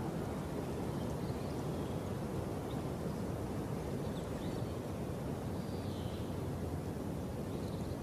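Steady low outdoor rumble, with a few faint short high chirps scattered through it.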